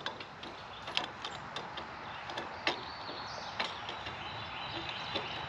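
Sharp clicks and knocks of a clamp antenna mount being fitted and tightened onto a metal park grill: a few separate strokes, the loudest about one and two and a half seconds in.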